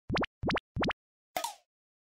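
Cartoon 'bloop' sound effects: three quick pops that each slide upward in pitch, about three a second, followed by one short, softer blip about a second and a half in.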